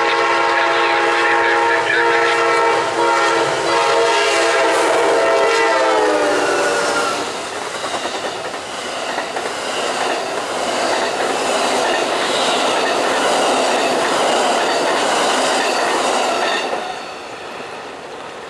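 Amtrak passenger train's locomotive horn sounding one long chord that drops in pitch about six seconds in as the locomotive passes. Then the rush and clickety-clack of double-deck Superliner cars rolling by, fading away near the end.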